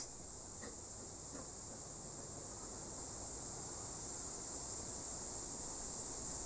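Steady high-pitched chirring of insects, with two faint short sounds about a second in.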